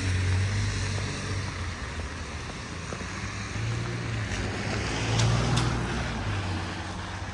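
A motor vehicle's engine running with a steady low hum that swells and fades twice, over the hiss of rain and wet traffic on the street.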